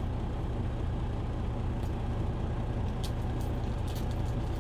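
Steady low rumble of an idling truck engine, with a few light ticks from cards being handled about three to four seconds in.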